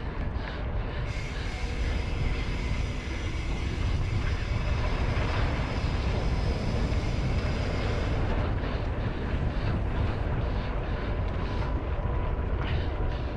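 A mountain bike rolling along a trail: a steady rumble of wind buffeting the microphone and tyre noise on the trail surface.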